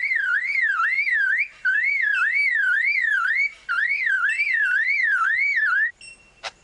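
Superb lyrebird mimicking a car alarm: a loud whooping warble that sweeps up and down in pitch about three times a second, in three runs with short breaks, stopping about six seconds in. Two sharp clicks follow near the end.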